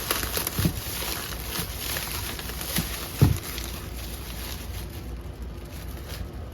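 Packaging rustling as sneakers are slid out of their box and bubble wrap, with a soft thump under a second in and a louder one about three seconds in.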